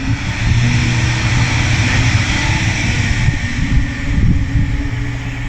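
Wind buffeting the microphone with a low rumble, over road traffic running by on the street.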